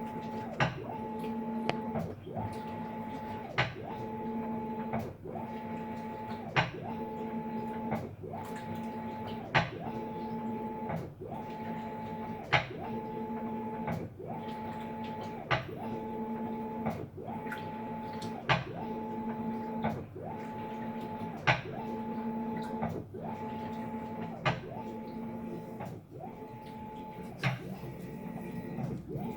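Maytag MVWB765FC top-load washing machine agitating: the motor hums in strokes that switch about every one and a half seconds, with a sharp, loud click at each change, the loudest every three seconds or so. The owner takes the click for a loose drive gear or retaining part slapping as the machine agitates; the service technician called it the clutch cycling on and off, normal for this model.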